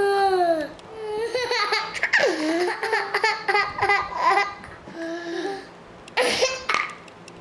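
A toddler's drawn-out crying wail, falling in pitch, breaks off under a second in and gives way to a run of quick, choppy laughter and giggles.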